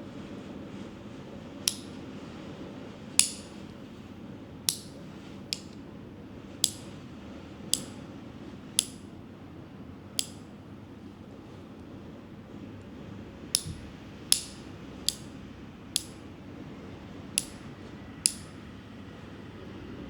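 Nail clippers cutting nails: about fourteen sharp, separate snips with a brief metallic ring, roughly one a second, pausing for a few seconds midway. A steady low hum runs underneath.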